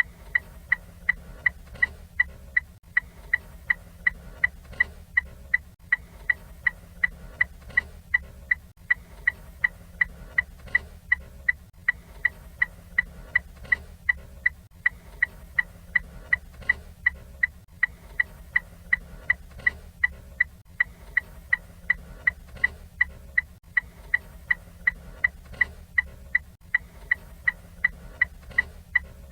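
Ford Fiesta turn-signal (indicator) flasher ticking steadily, about two to three sharp ticks a second, over a faint low hum.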